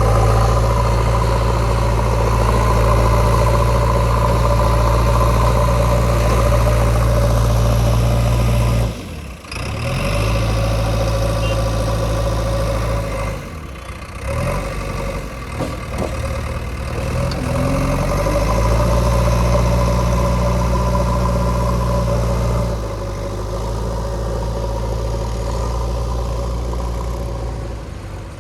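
Heavy diesel engine running steadily under load. It drops off briefly about nine seconds in and again around thirteen seconds, then climbs in pitch as it revs back up.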